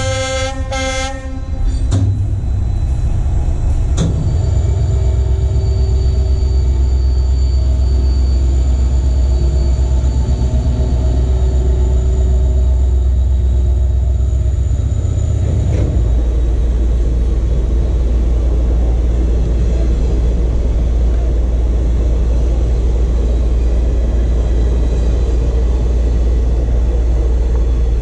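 Indian Railways WDP4D diesel locomotives passing close by. A horn sounds and stops about a second and a half in, then the locomotive's engine runs with a loud, steady deep rumble as it goes past, with a thin high whine over it until about halfway.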